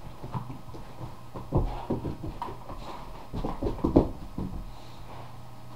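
Boxer puppy playing on a carpeted floor: irregular knocks and scuffling thumps in two flurries, the loudest about four seconds in.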